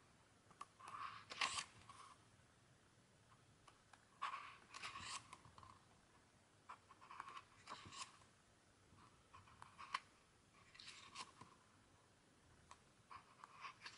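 Faint paper rustle and flick of photo-book pages being turned by hand, one page about every three seconds.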